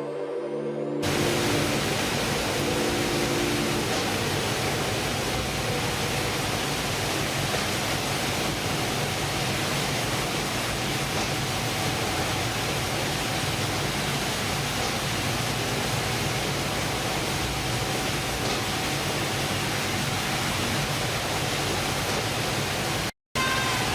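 A steady, loud rushing noise with no clear pitch, taking over about a second in from a pitched hum. It cuts out briefly just before the end.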